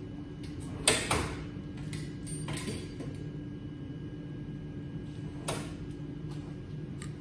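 Hand tools being handled and rummaged through while a different set of pliers is fetched. There is a sharp clatter about a second in, then a few scattered knocks and scrapes, the last near the end, over a steady low hum.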